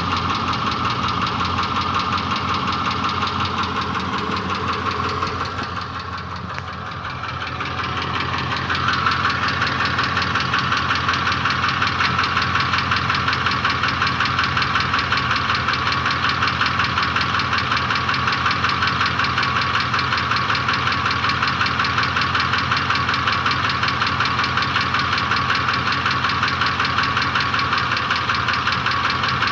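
Ford 5.4-litre three-valve Triton V8 engine running with a fast, steady knock in time with the engine, a newly appeared knock of unknown cause. Briefly quieter about six seconds in.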